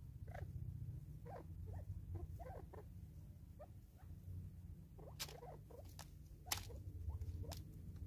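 Spurfowl pecking and scratching at seed on a wooden stump: soft, irregular taps and clicks, with a few sharper clicks between about five and seven and a half seconds in, over a low steady hum.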